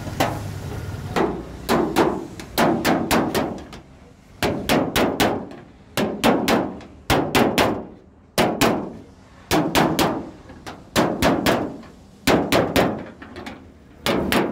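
Hammer blows on a car's sheet-metal body panel, struck in quick runs of three or four with short pauses between runs. Each blow clangs and rings briefly, as in panel beating to work out body damage.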